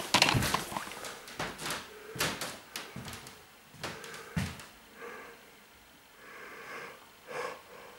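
A string of short knocks and clicks from objects being handled in a small room, fading to faint shuffling after about four and a half seconds.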